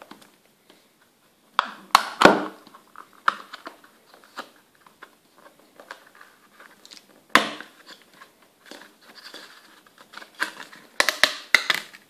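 Plastic back cover of a Samsung Galaxy Note II being prised off by hand: scattered clicks and crackles from the cover's clips, with sharper snaps about two seconds in and near the middle, and a quick run of clicks near the end as the cover comes free.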